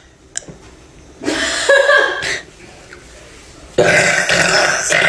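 A woman burping loudly twice: one burp about a second in lasting about a second, and a second, longer one starting near the end.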